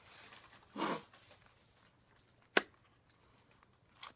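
Quiet handling of items in an opened package: a short rustle about a second in, then a sharp tap about two and a half seconds in and a smaller click near the end.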